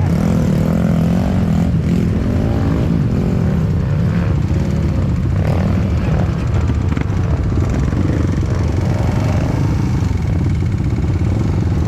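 Dirt bike engine running, its pitch wavering up and down.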